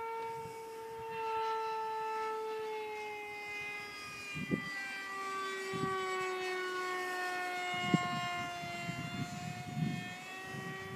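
Electric motor of a radio-controlled F-18 model jet whining in flight overhead: one steady high tone that slowly drops in pitch, with a few soft low thumps.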